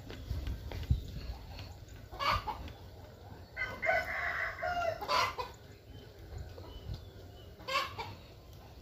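A rooster crows once, a call of about a second and a half starting about three and a half seconds in, with shorter chicken calls before and after it and a thump about a second in.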